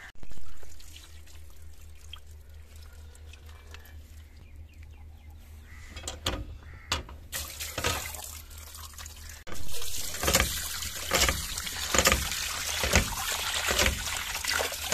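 Tap water pouring into a steel bowl as fish pieces are rinsed and rubbed by hand, splashing; the running water gets louder about nine and a half seconds in.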